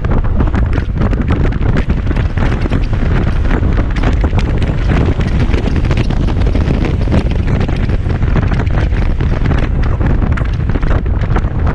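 Heavy wind buffeting on the microphone of a moving Kymco Xciting 250i maxi-scooter at road speed, loud and steady, with the scooter's engine and road noise mixed in underneath.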